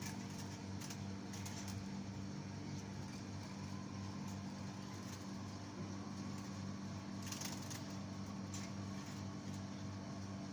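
Steady low mechanical hum, with a few faint short clicks on top and one brighter click about seven seconds in.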